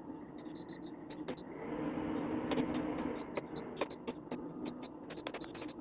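Bokuk air cooler running, its 12 V DC fan motor giving a steady hum, while its control panel clicks and gives many short high beeps in quick runs as buttons are pressed, most densely in the second half.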